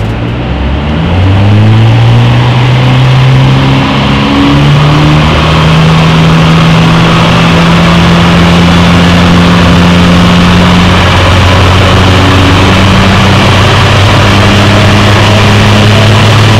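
Ford Focus ST (Mk3) engine running through a Milltek aftermarket exhaust. The revs climb in steps over the first few seconds and are held steady, then ease back to a lower steady speed about eleven seconds in.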